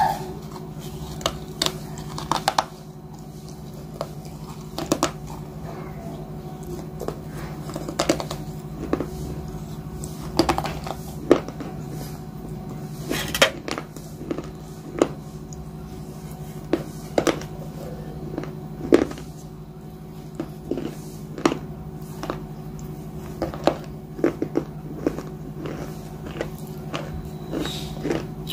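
Close-up crunching and chewing of ice: sharp, irregular crunches every second or so, over a steady low hum.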